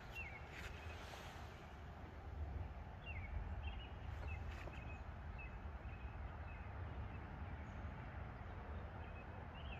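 Quiet outdoor ambience: small birds chirping now and then over a low, steady rumble, with a few faint ticks. No shot is fired.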